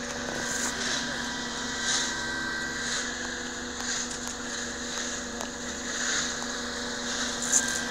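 An engine running steadily with a constant hum, together with footsteps crunching in snow about once a second.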